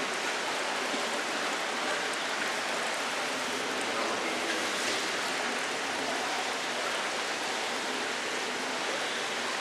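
Steady rushing and bubbling of water pouring into an aerated fish-holding tank.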